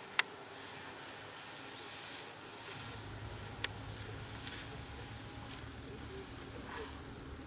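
Steady, high-pitched insect chirring, of the cricket kind, with two sharp clicks, one near the start and one a few seconds in. A low rumble comes in about three seconds in.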